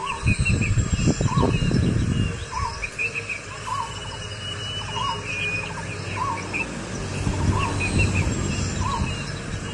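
Birds calling outdoors, one repeating a short call about once a second, with higher chirps over it. Two gusts of low wind rumble on the microphone come near the start and near the end.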